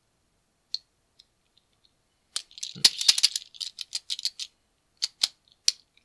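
Master Lock Speed Dial padlock's directional dial clicking as it is pushed through moves: one click, then a quick flurry of clicks and rattles, then three single clicks near the end. These are partial moves backward, probing for a disc's gate.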